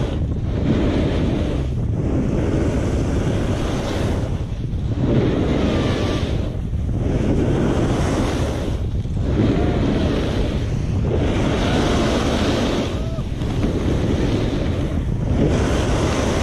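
Snowboard edges carving and scraping through groomed snow, with wind rushing over the action-camera microphone. The noise swells with each turn and dips between them, about every two seconds.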